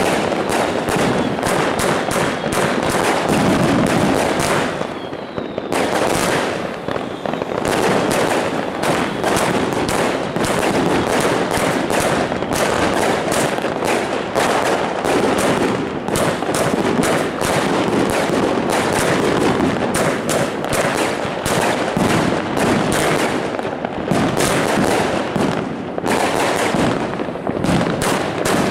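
Herlat Kracherblitz fireworks going off in a dense, unbroken barrage of shots, bangs and crackling bursts, with a brief lull about five seconds in.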